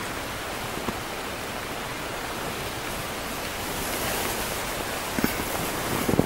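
A steady, even hiss of outdoor noise in a snowy conifer forest, swelling slightly about two-thirds of the way through, with a few faint clicks near the end.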